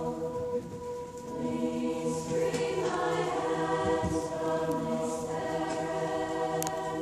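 Large high-school choir singing long held chords that move slowly from one to the next.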